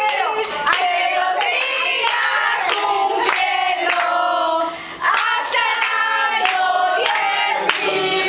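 A group of people singing together, with hand clapping along throughout.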